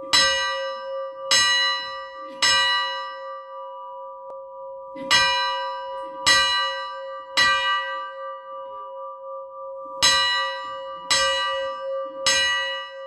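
A church bell struck nine times in three groups of three. The strokes within a group come about a second apart, with a pause of a couple of seconds between groups, and the bell's tone rings on between strokes.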